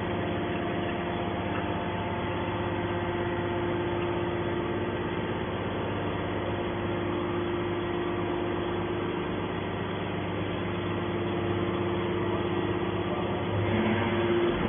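Hydraulic scrap-metal baler running with a steady machine hum, getting a little louder near the end.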